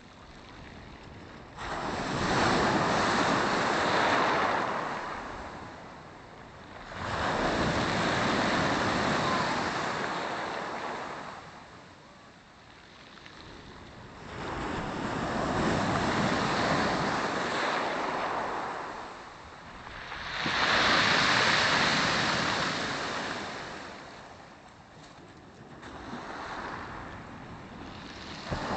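Black Sea waves breaking on the shore: four surges of surf about six seconds apart, each swelling and fading over four to five seconds, with another building near the end.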